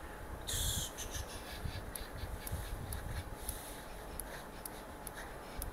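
Quiet handling noise as the recording phone is moved, with a short hiss about half a second in and a few faint clicks.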